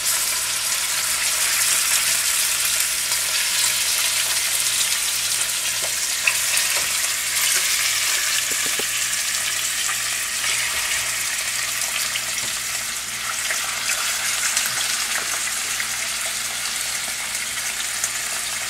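Chicken pieces frying skin side down in olive oil in a skillet: a steady sizzle as they are browned.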